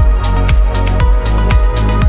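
Background electronic dance music with a steady kick drum at about two beats a second and hi-hat-like ticks between the beats.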